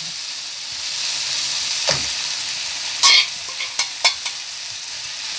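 Onion, tomato and cashews sizzling steadily in oil in a frying pan as whole quails are added. There are a few short knocks and scrapes in the pan about two, three and four seconds in; the one at three seconds is the loudest.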